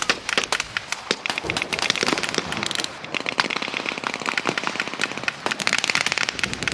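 Blank gunfire in a mock battle: scattered single rifle shots, with a machine gun firing short rapid bursts about halfway through and again near the end.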